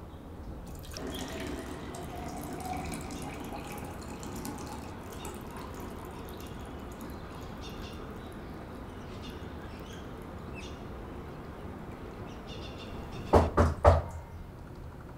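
Water poured from a glass carafe into a tall glass, splashing and bubbling as the glass fills. Near the end come three sharp knocks in quick succession, the loudest sounds of all.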